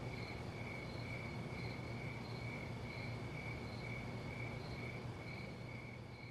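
Faint cricket chirping, an even, high pulsing at about two chirps a second over a steady low hum, fading out at the end.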